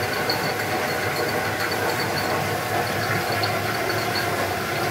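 Small farm hydroelectric plant's water turbine and generator running steadily: a constant low hum over a rushing-water hiss, with a fast, light ticking above it.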